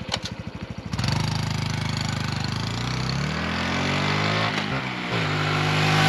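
Honda Trail 125's air-cooled single-cylinder, fuel-injected engine cranking on its electric starter and catching about a second in. It then idles, revs up and back down, and settles to a steady idle.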